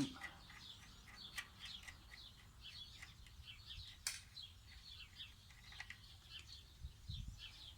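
Small birds chirping and twittering steadily in the background, with a few faint clicks and one sharper click about four seconds in.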